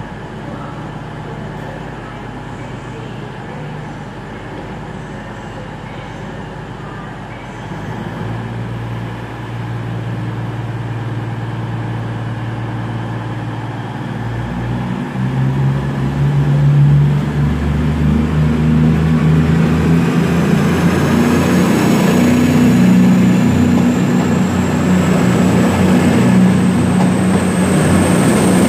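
CrossCountry Voyager diesel multiple unit's underfloor diesel engines idling, then throttling up about halfway through as the train pulls away, louder from then on. A high whine rises steadily in pitch near the end as it gathers speed.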